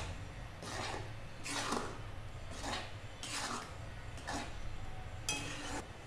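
Metal spatula scraping and stirring through thick, cooking lemon pickle in a metal kadhai: about six rasping strokes, roughly one a second.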